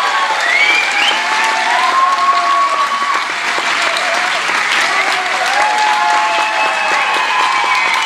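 Concert audience applauding, a dense steady clatter of many hands clapping, with voices calling out over it.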